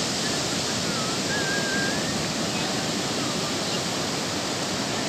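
Bay of Bengal surf breaking on a sand beach: a steady, even rush of waves.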